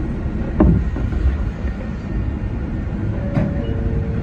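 Low, steady rumble inside the driving cab of a Sangi Railway 801-series (ex-Seibu 701) electric train as it pulls slowly forward. A sharp knock about half a second in, and a lighter clunk near three and a half seconds followed by a brief steady tone.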